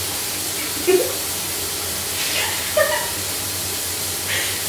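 Shower running behind the curtain, a steady hiss of water spray, with a few short laughs and vocal sounds over it.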